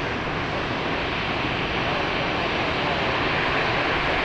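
Airbus A320-214's CFM56 jet engines in a steady, loud roar as the airliner lands, swelling slightly towards the end.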